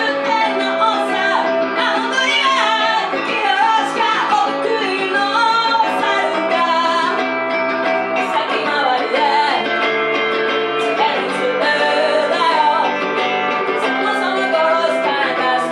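Live rock song: a singer's voice over a Telecaster-style electric guitar played through an amplifier.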